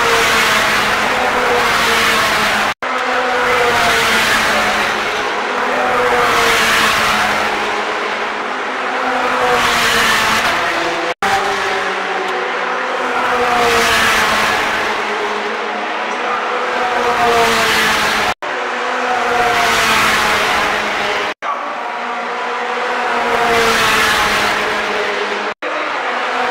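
Ferrari 458 and 488 Challenge race cars passing one after another at speed, their V8 engines at high revs. Each pass swells and fades while the engine note rises and falls in pitch. The sound drops out briefly several times between passes.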